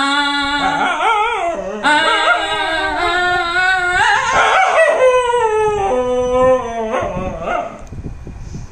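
A dog howling along with a man singing: the dog's long howls waver and slide up and down in pitch, while the man holds steady notes near the start and again about six seconds in.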